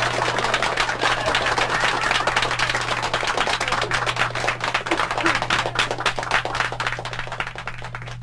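Audience applause, a dense patter of clapping that thins and fades out near the end, over a steady low hum.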